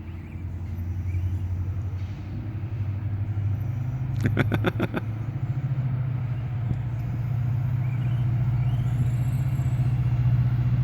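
A steady low motor hum that steps up in pitch about four seconds in and then holds, with a quick rattle of about eight sharp clicks around the same moment.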